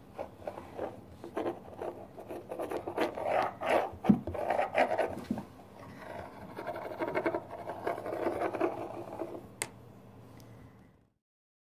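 Kitten playing on a polished wooden floor: irregular scratching, scrabbling and tapping of paws and claws as it bats at a wand toy with a ball on a cord. There is one sharp click near the end, and then the sound cuts off.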